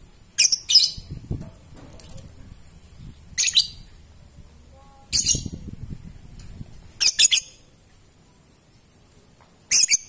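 Caged Fischer's lovebird giving five short bursts of shrill, high-pitched chattering calls, a second or two apart, several of them doubled.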